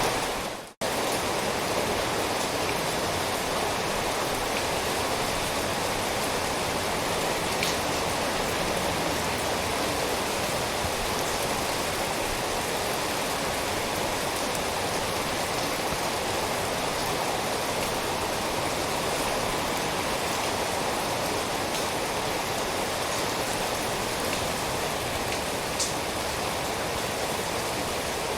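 Steady rain falling, an even dense hiss with an occasional single drop tick standing out. The sound cuts out briefly less than a second in, then returns at the same level.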